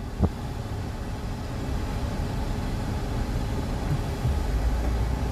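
Truck engine idling with a steady low rumble, heard from inside the cab, with a short click about a quarter second in; the rumble grows louder a little past four seconds in.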